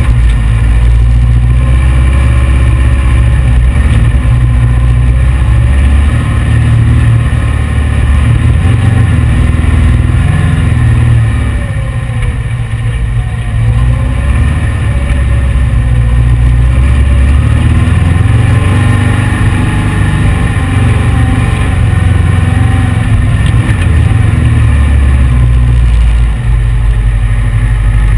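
Air-cooled VW 1835 flat-four engine of a heavy dune buggy running under load over sand, its revs rising and falling, with a heavy low rumble throughout.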